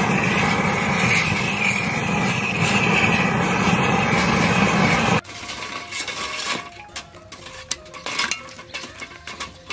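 Gas torch blowing its flame steadily onto a pile of charcoal briquettes to light them, cutting off suddenly about five seconds in. Then scattered clinks and knocks of charcoal pieces being shifted with metal tongs on the grill grate, over faint background music.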